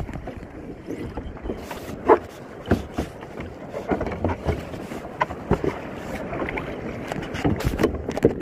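Choppy sea water splashing and slapping against a plastic kayak as it is paddled through waves, with irregular sharp splashes and knocks and wind buffeting the microphone.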